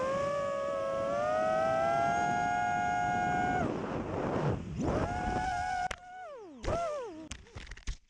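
FPV quadcopter's electric motors and propellers whining at a steady, slowly rising pitch, with wind rushing past the onboard microphone. About four seconds in the pitch dips and climbs again with the throttle, then in the last two seconds it falls sharply several times between sharp knocks as the quad crashes and tumbles into snow, the motors winding down.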